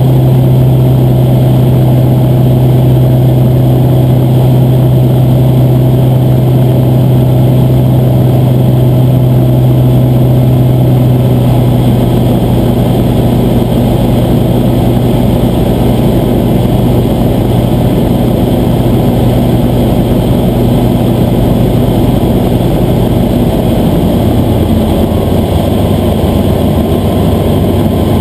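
Light-sport aircraft engine and propeller droning steadily in flight, heard from inside the cockpit. The drone drops slightly in pitch about 24 seconds in.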